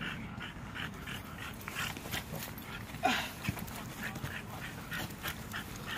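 French bulldog panting in quick, evenly repeated breaths, with one short downward-sliding sound about three seconds in.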